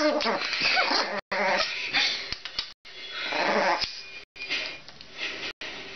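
Chihuahua puppy making a run of short, rough vocal noises with a few small rising and falling whines, broken by brief silences.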